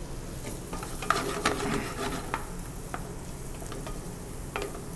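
Diced butternut squash sizzling in melted butter in a high-sided pan, with scattered clicks and scrapes against the pan as it is handled and stirred.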